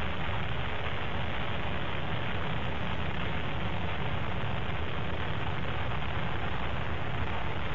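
Delta IV Heavy rocket's three RS-68 engines firing in ascent: a steady, unbroken rumbling noise, heaviest in the low end.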